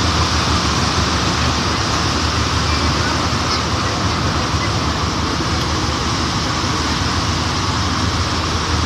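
NS-93 rubber-tyred metro train running through a tunnel, heard from inside the car: a steady, loud rumble and rush of running gear with a low hum underneath.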